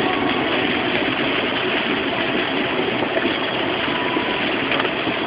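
A car driving through heavy rain, heard from inside the car: a steady rush of rain and wet-road noise over the engine.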